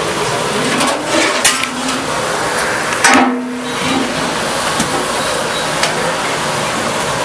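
Chicken legs deep-frying in a kadai of hot oil, a steady loud sizzle. A few sharp knocks, the loudest about three seconds in with a short ring.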